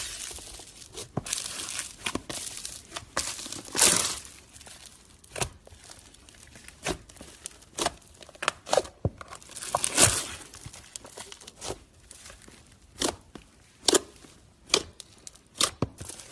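Slime being squeezed and pressed by hand, giving irregular crackles, pops and crinkling sounds, with two louder pops about four and ten seconds in.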